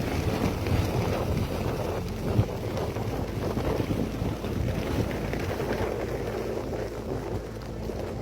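Natural gas bubbling up through river water, a steady churning and gurgling, with wind buffeting the microphone.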